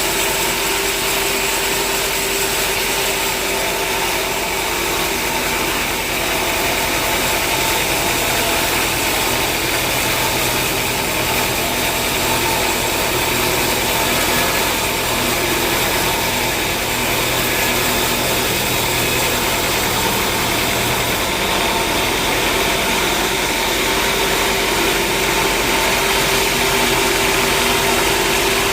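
An engine running steadily at one speed, a constant hum made of several held tones over a noisy background, typical of sawmill machinery running without a cut.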